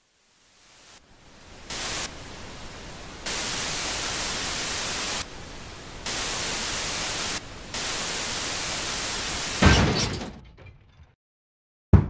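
Television static hiss that cuts louder and quieter in blocks of a few seconds. About ten seconds in, a loud thump fades out, and a short sharp knock comes near the end.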